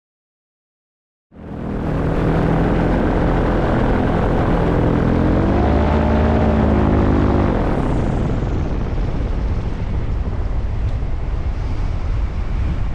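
Propeller engine of a small flying craft running steadily under a loud rush of air, starting abruptly about a second in. Its note rises and then falls back once a few seconds later.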